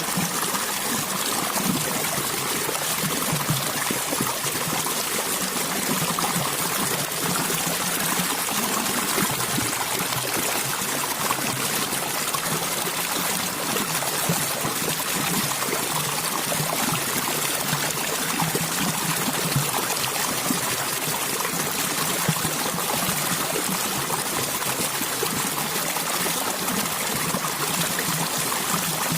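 Stream water running steadily over rocks, an even trickling and splashing with no pauses.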